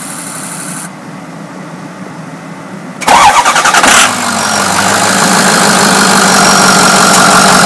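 Ford 6.0-liter Power Stroke V8 turbo diesel being started: quiet for the first three seconds, then a sudden loud clatter as it cranks and catches, settling about a second later into a steady idle.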